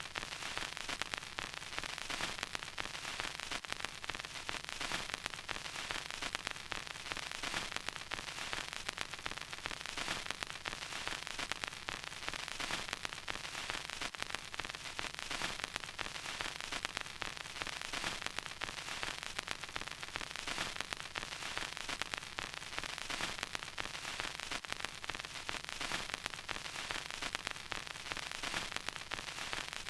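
Vinyl record surface crackle: a steady bed of surface hiss dense with fine pops and clicks as the stylus runs in the groove, with no music.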